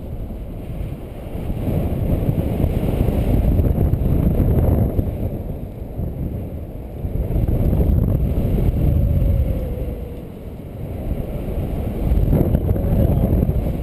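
Wind buffeting the microphone of a paraglider pilot's camera in flight: a low rumbling rush that swells and eases three times.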